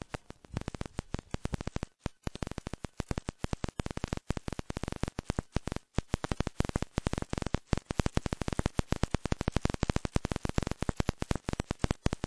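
Dense, irregular crackling: sharp clicks many times a second, with brief breaks about two seconds and six seconds in.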